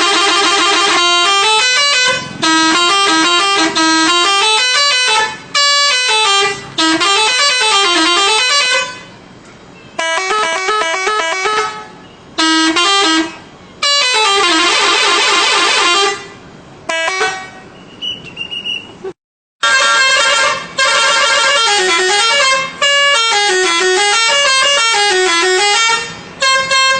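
Telolet musical horn on a Scorpion Holidays bus, playing quick stepping melodies in loud repeated bursts with short pauses between. Some phrases carry a wavering up-and-down tune.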